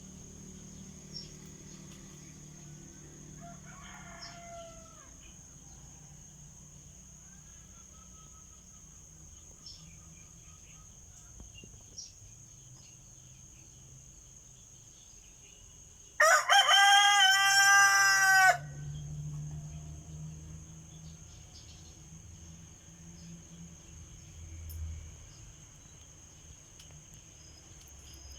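Rooster crowing: one loud cock-a-doodle-doo about two seconds long a little past the middle, with fainter crowing from farther off about four seconds in.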